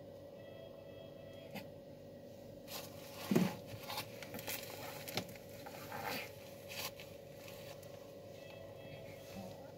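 Rustling and scraping handling noises, with a few clicks, for several seconds in the middle, over a faint steady hum.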